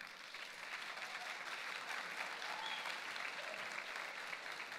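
Assembly audience of students applauding, a steady spread of clapping that eases slightly near the end.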